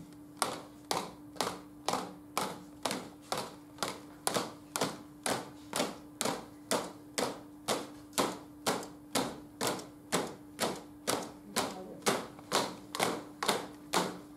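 A group of people tapping a steady beat together in unison, about two taps a second, over a faint steady hum.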